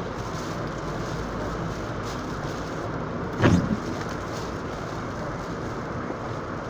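Steady road and engine noise inside a moving car on a snowy, slushy highway. About three and a half seconds in there is one brief, louder sound that falls in pitch.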